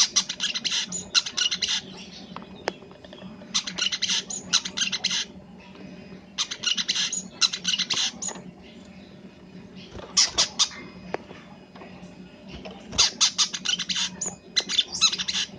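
Brown-throated sunbird (kolibri kelapa) singing in full voice: five fast, high, chattering phrases of a second or two each, separated by short pauses, carrying its learned phrases ('isian').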